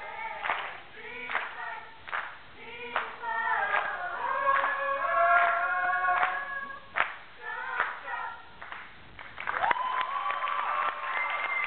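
A group of voices singing together, punctuated by sharp claps, ending on a long held chord about ten seconds in.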